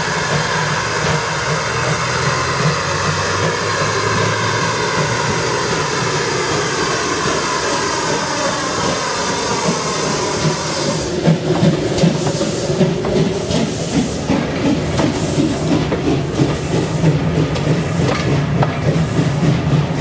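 A train running on the rails: a steady drone of many tones over a low hum that slides down in pitch about ten seconds in, after which the high hiss drops away and the wheels click and knock irregularly over the rail joints.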